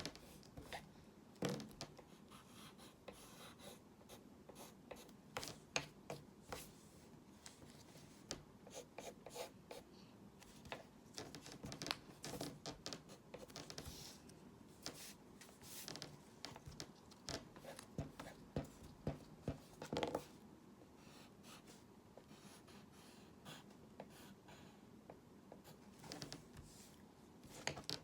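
Hand drawing: a pen or pencil scratching across the drawing surface in many quick, short strokes. The strokes come in bursts and thin out for a few seconds late on.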